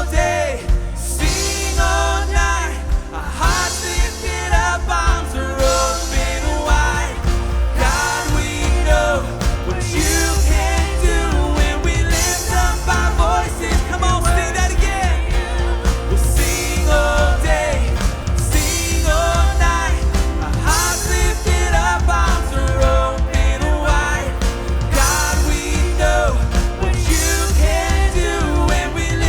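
Live worship band playing a rock-styled praise song: drums, bass, guitars and keyboards under a sung lead melody, with a steady beat.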